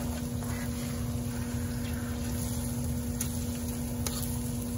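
Spatula stirring thick sticky rice in a metal wok, with a few light taps and scrapes against the pan about three and four seconds in, over a steady low hum.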